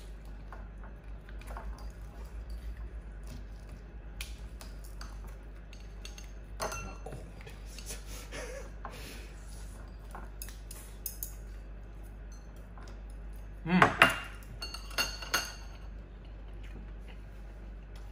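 Chopsticks clinking against small porcelain plates and the serving dish while food is picked up and eaten, with scattered light clicks and a louder clatter of dishes about 14 seconds in.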